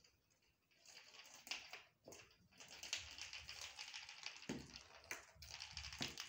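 Quiet, rapid tapping and scuffling of a kitten's paws and a small ball on a terrazzo floor as the kitten chases the ball, with a few soft thumps in the second half.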